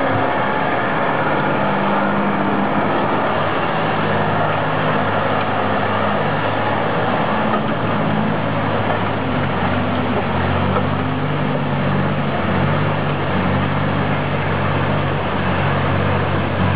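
Heavy logging truck engine running under load, a steady low drone whose pitch shifts about halfway through, with a constant rushing noise over it.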